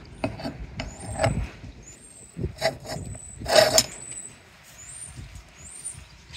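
Metal crank handle clicking and rattling in a clothesline pulley as it is fitted and worked, a series of separate knocks with a louder rattling burst about three and a half seconds in.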